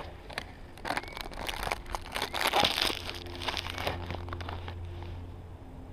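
Footsteps crunching in snow while walking along a trail, irregular and loudest about two to three seconds in.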